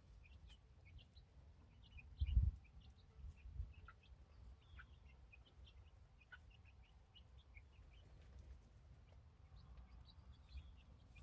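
Young chicks peeping faintly in short, scattered chirps. A brief low thump comes about two seconds in.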